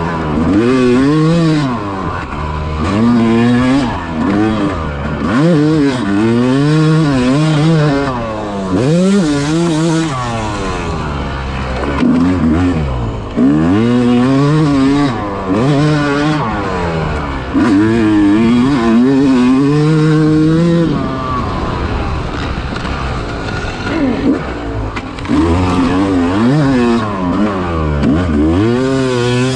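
Yamaha YZ250 two-stroke dirt-bike engine being ridden hard, its pitch climbing and dropping every second or two through throttle blips and gear changes. There is a quieter, less steady stretch about two-thirds of the way through.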